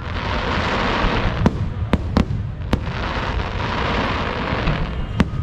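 Aerial fireworks display: about five sharp bangs of bursting shells scattered over a continuous hiss and low rumble.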